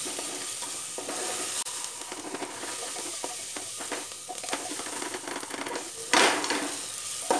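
Sliced onions sizzling as they fry in hot oil in a pressure-cooker pot, stirred and scraped with a wooden spatula, with small clicks of the spatula against the pot. The noise swells for a moment about six seconds in.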